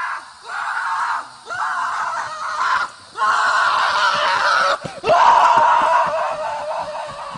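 Palomino horse with its teeth clamped on a wooden fence post, giving about five long, rasping, shriek-like cries in a row, each about a second long with brief breaks; the last one trails off near the end.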